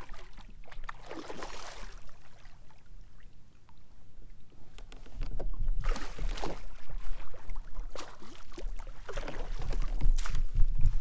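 Water splashing and washing against a kayak's hull in several short surges, over a low rumble that builds through the second half.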